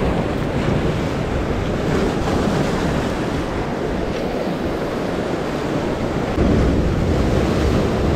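Rough sea surf breaking and washing over concrete tetrapods, with wind buffeting the microphone. The low rumble grows louder about six seconds in.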